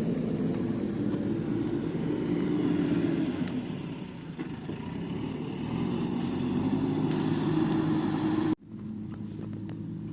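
An engine running steadily, its level swelling and sagging, cut off abruptly about eight and a half seconds in and followed by a quieter engine sound.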